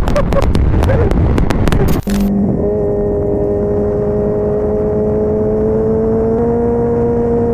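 Wind buffeting with sharp crackles for about two seconds, then an abrupt change to a vehicle engine running steadily, its pitch creeping slowly upward.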